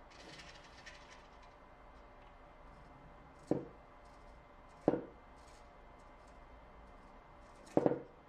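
Three sharp knocks over a faint steady electrical hum: two single knocks a second and a half apart, then a quick double knock a few seconds later.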